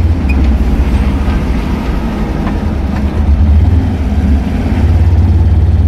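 Steady low rumble of vehicle engines and road noise while driving on a highway. It swells about three and a half seconds in and again near the end.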